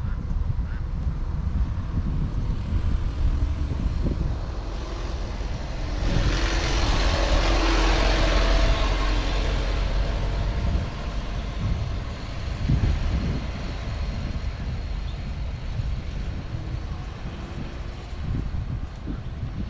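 Traffic noise: a motor vehicle passes close, swelling and then fading over about five seconds midway, over a steady low rumble.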